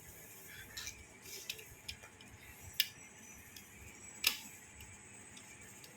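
Scattered light clicks and taps of hand work on the terminals of a smoke detector base as wires are connected, about half a dozen in all, the sharpest about four seconds in.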